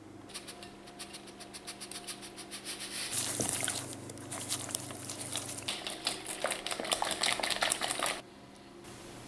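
Wire whisk beating eggs, brown sugar and oil in a glass bowl: a fast run of clinks of metal on glass in the wet mix. It gets louder about three seconds in and stops suddenly about eight seconds in.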